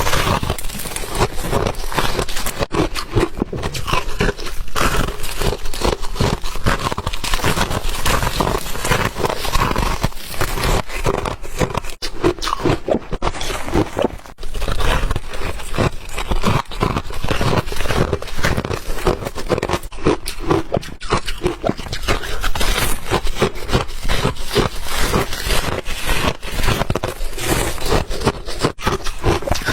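White ice being chewed, a dense, unbroken run of crunches and crackles.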